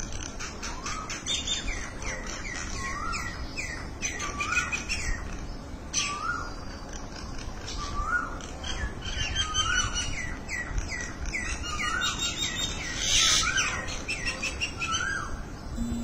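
Common mynas calling: a steady stream of short upswept chirps and whistles repeated about once a second, with a louder cluster of calls about thirteen seconds in.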